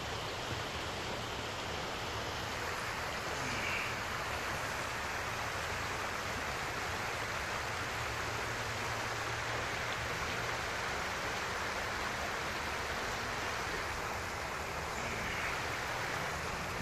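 Steady rushing hiss of flowing water from a muddy creek.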